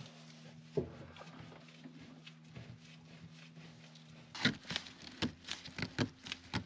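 Clamps being set and tightened onto a freshly glued laminated wooden frame. There is a single knock about a second in, then a quick run of sharp clicks and knocks near the end, over a faint steady hum.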